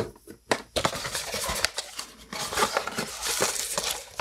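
Packaging being handled: crinkling and rustling of wrapping with small irregular clicks and taps as a small part is taken out of its box.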